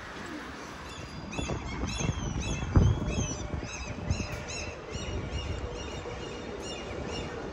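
A bird calling over and over: a fast run of high, arched notes, about three a second. A single low thump comes about three seconds in, over a steady low rumble.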